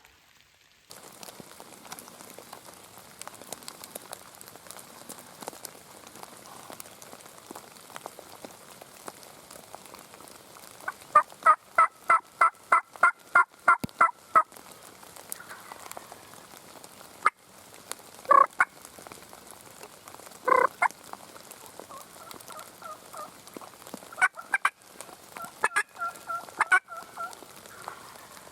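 Turkey calls over steady rain: a loud run of about a dozen evenly spaced yelps, about three a second, then a few single calls and short bursts later on.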